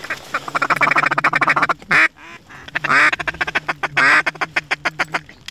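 Duck call blown by a hunter in a fast, rapid-fire feeding chatter, with three loud, drawn-out quacks about a second apart, working mallards flying overhead.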